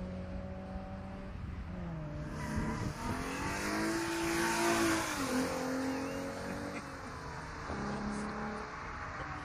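Alfa Romeo race car approaching at speed along a wet track and passing close by. Its engine climbs in pitch as it nears, is loudest with a hiss of tyres on the wet asphalt, then drops sharply in pitch as it goes past, about five seconds in.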